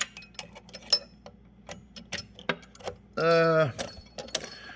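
Steel sockets and tools clinking and clattering as they are handled in a metal toolbox drawer: a string of sharp metallic clinks, some ringing briefly.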